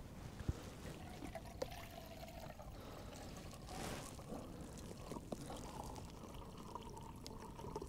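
Water poured into a small titanium camping pot, the pitch of the filling rising steadily as the pot fills, with a few light knocks.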